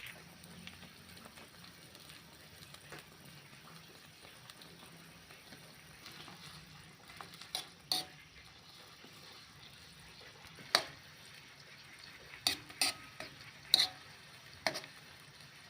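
Food stir-frying in a pan with a faint, steady sizzle, while a utensil knocks sharply against the pan about seven times in the second half.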